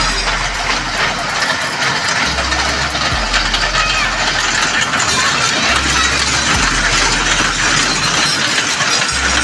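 A children's mini train ride running on its small circular track, its engine humming as the train passes close by, over a dense din of voices. A low hum steps between two pitches every couple of seconds.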